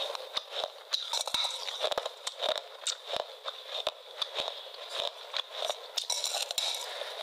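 Close-miked ASMR crunching: a quick, irregular run of crisp cracks and clicks with crackly noise between them, like bites into something brittle, with the low end cut away.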